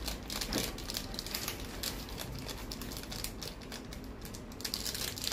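Small foil-lined Maggi Masala seasoning sachet crinkling as it is squeezed and shaken to tip the spice powder out, a dense run of fine crackles.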